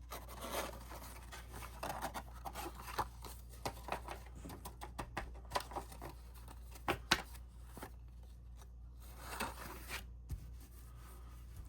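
Cardstock pieces being handled, folded and slid into slits: intermittent paper rustling with scattered light clicks and taps.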